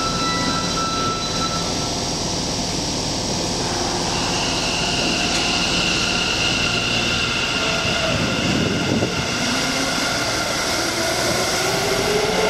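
Sendai Subway 2000 series train starting to pull out of an underground station, its VVVF inverter whine climbing steadily in pitch from about eight seconds in as it accelerates. A few thin electronic tones sound in the first few seconds.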